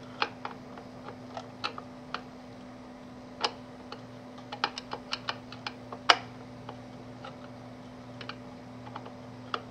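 Small irregular clicks and ticks of a hand screwdriver working a small screw out of a plastic housing, with a sharper click about six seconds in. A faint steady hum runs underneath.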